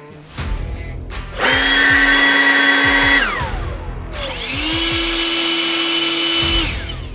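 Two blasts from conventional cordless electric leaf blowers. Each spins up quickly to a loud, steady high whine with a rush of air, holds for about two seconds, then winds down with falling pitch. The second blast is pitched slightly higher.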